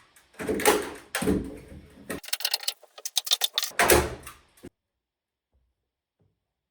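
Knocking and scraping handling noises with a quick run of clicks, ending in a louder knock, after which the sound cuts to silence.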